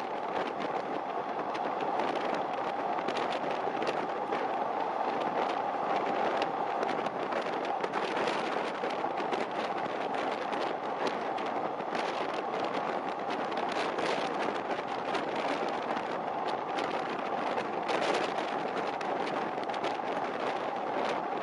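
A train running steadily along the track: an even rolling noise from wheels on rail, with frequent short clicks and rattles throughout.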